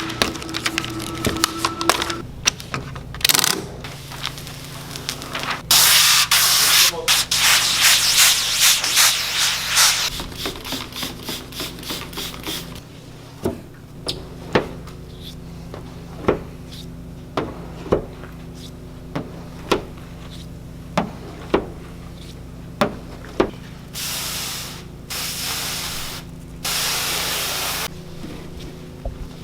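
Hissing bursts of a hand spray bottle misting liquid, three short squirts near the end, with a run of sharp clicks and taps in between.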